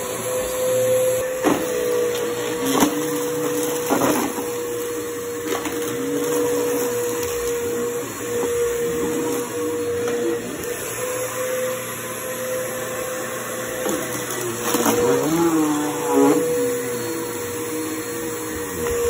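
Bissell bagless upright vacuum cleaner running on a shaggy rug: a steady motor hum, with lower tones wavering as the load on the machine changes. A few short knocks are heard along the way.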